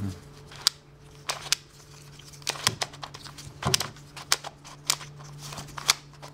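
Stickerless plastic twisty puzzle cube being turned in the hands: irregular sharp clicks and clacks as its pieces turn and snap into place, a few louder than the rest.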